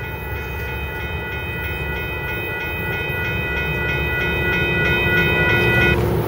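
Railroad grade-crossing warning bell ringing in quick, even dings, cutting off just before the end as the crossing signals clear after the train. Under it is a steady low rumble, and cars drive across the tracks, growing louder in the second half.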